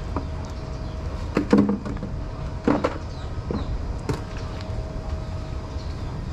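Steady low outdoor rumble, with a few short knocks and clatters, the loudest about one and a half seconds in and just under three seconds in.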